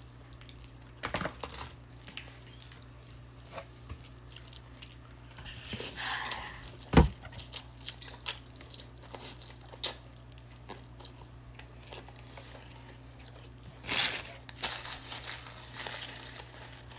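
A person eating birria tacos: scattered biting, chewing and lip-smacking sounds, with a sharp click about seven seconds in.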